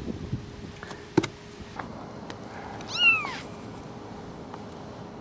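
A 10-day-old kitten mewing once, about three seconds in: a single high, thin cry that falls in pitch. A few light clicks come before it, the sharpest just over a second in.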